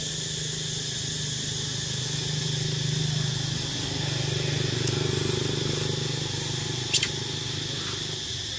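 Outdoor woodland ambience: a steady high buzz and a low steady hum that grows a little louder in the middle, with one short sharp chirp about seven seconds in.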